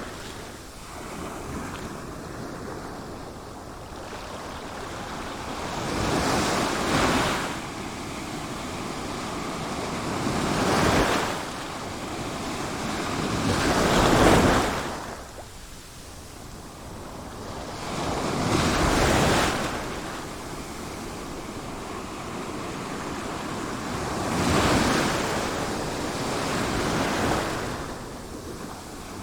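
Sea waves washing onto a shore. The surf surges in about six times, a few seconds apart, each swell rising and then falling back into a steady hiss.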